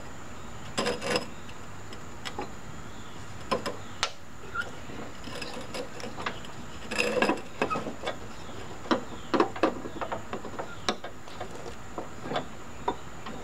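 Irregular clicks and knocks as a rubber drive belt is worked by hand onto the metal pulleys of a riding mower's cutting deck, in scattered clusters with pauses between them.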